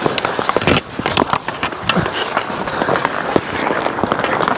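Ice hockey play up close: skate blades scraping and carving the ice, with many sharp clacks of sticks and puck.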